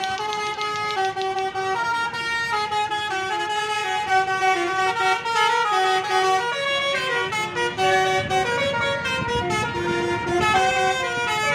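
Basuri musical bus horn playing a tune: several steady horn tones sound together and step from note to note in quick succession. A low rumble comes in underneath in the second half.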